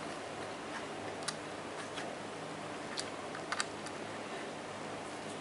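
A handful of faint, short clicks and ticks from a small screwdriver turning screws into the metal casing of a 2.5-inch solid state drive, over a steady low hiss.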